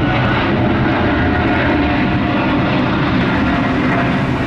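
British Airways Boeing 777 climbing away after takeoff, its twin jet engines giving a loud, steady roar with a faint steady whine on top.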